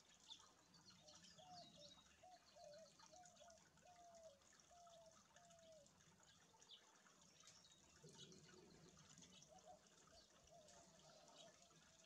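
Very faint trickling and dripping water in a shallow rock pool. In the first half there is a faint run of about eight short, low, falling notes, evenly spaced.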